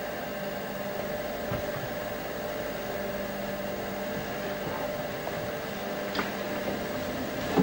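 Steady machinery hum with a hiss, with a faint click about six seconds in and a sharper click near the end.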